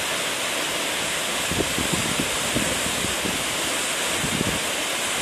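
Waterfall: a steady rush of falling water, with uneven low rumbles now and then.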